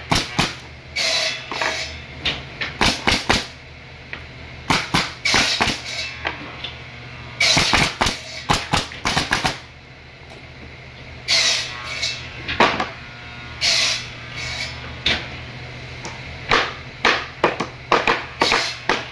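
Pneumatic nail gun firing nails into wooden pallet boards: sharp shots, some single and some in quick runs of several, over a steady low hum.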